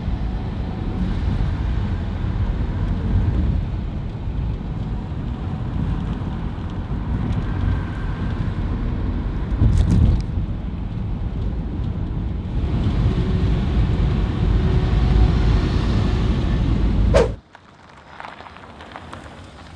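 Road and wind noise from a 2011 Toyota Prius on the move, a steady low rumble with a brief louder bump about ten seconds in. It cuts off abruptly near the end, leaving a much quieter background.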